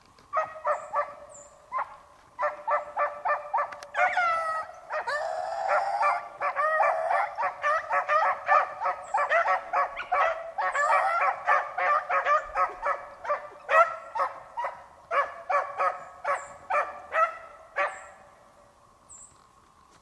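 A pack of beagles giving voice while trailing a rabbit: rapid, overlapping short barks from several hounds, with a few longer drawn-out bays about four to six seconds in. The barking stops about two seconds before the end.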